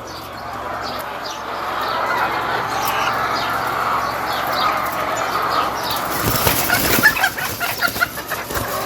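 A dense chorus of thousands of hens clucking and calling together, growing slowly louder, with a few sharp flaps of wings about six to seven seconds in.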